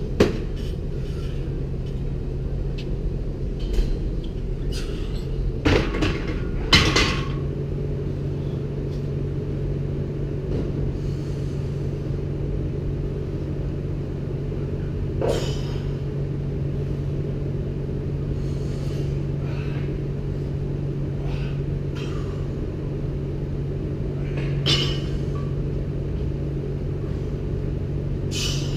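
Steady low hum of a weight room, with scattered sharp knocks and clanks of a loaded barbell and its plates and the lifter's breaths during barbell sets.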